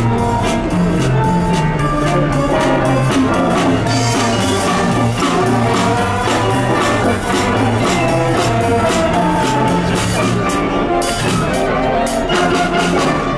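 School wind band playing live: brass and woodwinds over a drum kit, a tuba-led bass line and mallet percussion, with a steady, quick beat.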